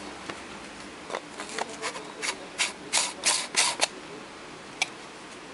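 Handling noise from a handheld wireless microphone being gripped and moved close to the camera: a run of short scratchy rubbing sounds, strongest about three seconds in, then a single sharp click near the end.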